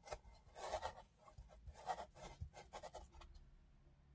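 Kitchen knife scoring a block of crisp Korean radish halfway through on a bamboo cutting board: several short, crunchy scraping strokes in the first three seconds, then quieter handling of the cut piece.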